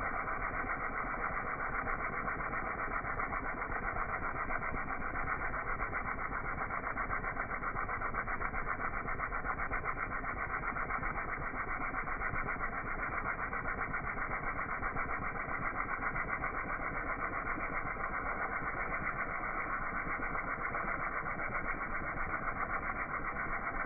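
Pressure washer running steadily, its engine and pump giving a fast, even pulse with no change in speed.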